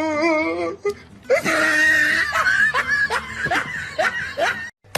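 A person laughing hard in quick breathy bursts, about three a second, cutting off just before the end.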